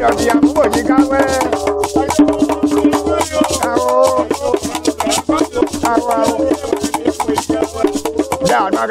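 Men's voices singing together over a calabash rattle shaken in a quick, steady rhythm.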